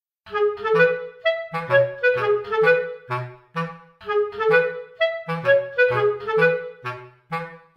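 Background music: a light tune of short, detached notes over a bass line, starting just after a moment of silence.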